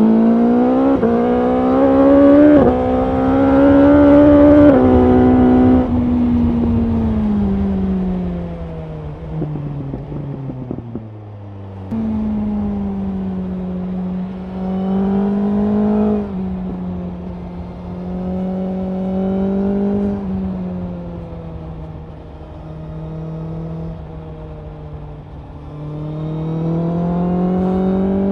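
BMW S1000R's 999 cc inline-four engine on the move, pulling hard early with the pitch climbing and dropping abruptly three times as it shifts up. It then rolls off with the pitch falling, cruises with the throttle opening and easing, and climbs again near the end, over a rush of wind.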